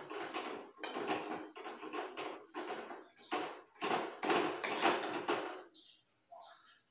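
Metal spatula scraping and stirring bottle gourd sabji in a steel kadai, in repeated strokes about two a second, stopping near the end.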